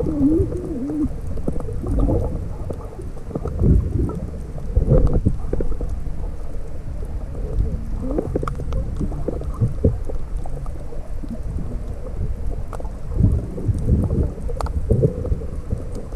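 Water sloshing and gurgling around a camera held underwater: a muffled low rumble that swells irregularly, with a short wavering tone in the first second.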